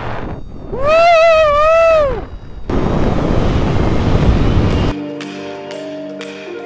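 A long, high, wavering whoop from a paraglider pilot in flight, rising then falling. It is followed by wind rushing over the microphone for about two seconds. About five seconds in, background music with soft mallet-like notes starts.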